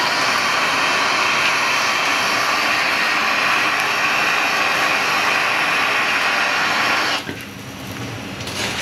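Handheld kitchen blowtorch flame burning with a loud, steady rush as it chars a piece of carrot. The flame is shut off abruptly about seven seconds in.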